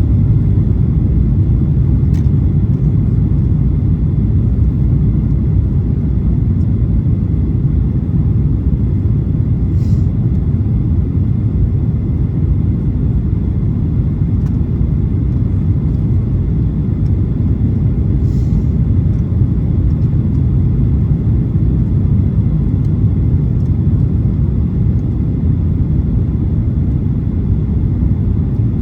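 Steady low rumble inside the cabin of a Boeing 737-800, from its CFM56-7B engines and the airflow, with a few faint ticks.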